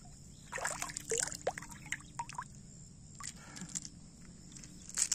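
Shallow stream water splashing and dripping as a hand dips in and lifts out while picking river snails off the bottom, with water running off the fingers in short, irregular splashes and drips.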